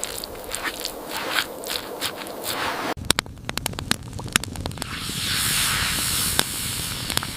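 Footsteps crunching through snow, then, after an abrupt cut about three seconds in, a campfire crackling with sharp pops and a hiss that swells from about five seconds in.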